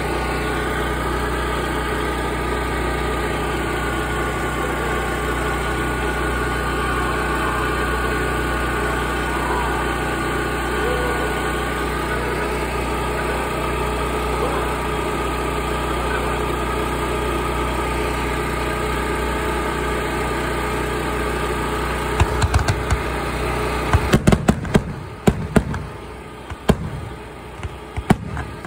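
An engine running steadily at idle. From about 22 seconds in, sharp fireworks bangs begin, and after about 24 seconds the engine sound drops away, leaving scattered fireworks bangs and crackles.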